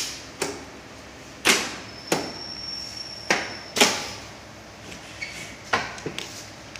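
Two-hand pneumatic high-frequency plastic welding press cycling: a series of short, sharp air hisses and clacks, about seven in all, as the press head moves. A steady high whine runs for about two seconds between the second and fifth bursts.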